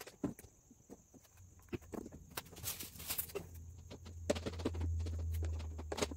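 Scattered light clicks, knocks and rustles of tint film being handled against a car's rear glass, with a low steady hum that comes in after about a second and a half and is loudest in the second half.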